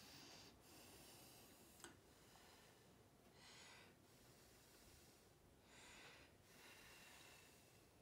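Near silence with faint room hiss and two soft puffs of breath, about three and a half and six seconds in.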